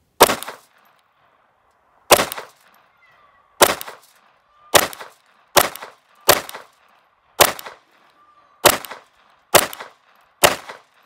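Ruger LCP II .22 LR pistol fired ten times at an uneven, unhurried pace, about one to two seconds apart. Each shot is a sharp crack that dies away quickly.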